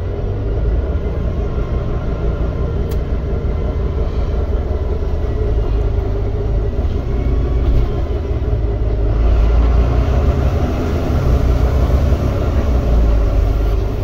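Volvo B9TL Wright Gemini double-decker bus under way, heard from the upper deck: its six-cylinder diesel and the road give a steady low rumble with a faint whine over it, growing louder about nine seconds in.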